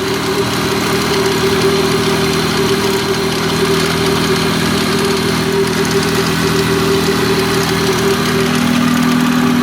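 1997 Lexus SC300's 2JZ inline-six idling steadily with a tick from the top of the engine, which the owner suspects is a lifter or valve tap, or a loose timing belt or bad tensioner.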